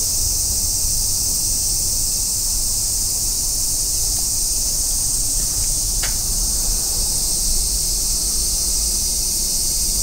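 Steady high-pitched chorus of insects, unbroken throughout, over a low rumble, with a faint click about six seconds in.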